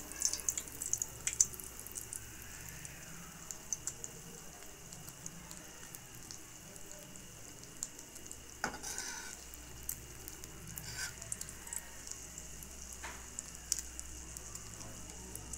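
Egg-soaked bread slice frying in ghee in a pan: a steady sizzle with scattered crackling pops, busiest in the first second and a half.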